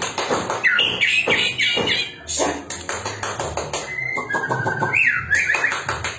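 White-rumped shama singing a varied, rapid song of harsh chattering notes, then held whistles and a rising whistle about five seconds in, a song filled with mimicked phrases of other birds.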